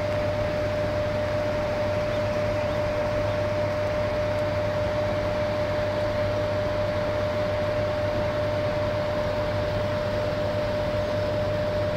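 Steady rush of high water through a hydroelectric dam on the Bóbr river, swollen after heavy rain, with a steady high-pitched hum running through it.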